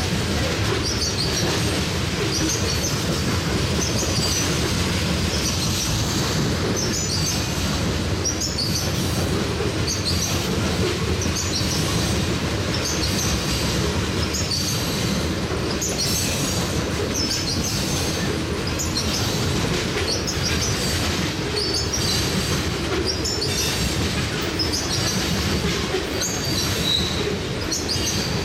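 Railroad tank cars rolling past at close range: a steady rumble of steel wheels on the rails. High-pitched wheel noise recurs every second or two as the car trucks go by.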